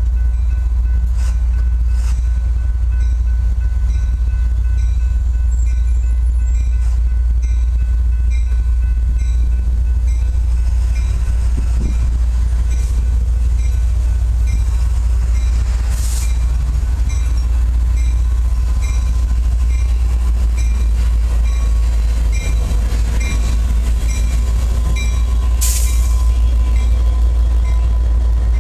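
A Norfolk Southern local freight train led by an EMD GP59 diesel locomotive, its 12-cylinder 710 engine running with a loud, steady low rumble as the train approaches. The locomotives pass close by near the end. A rapidly repeating high ding runs through most of it.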